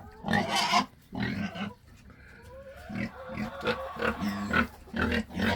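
Hungry pigs grunting and oinking in short repeated calls, begging to be fed. The calls ease off about two seconds in, then come back as quick grunts, two or three a second.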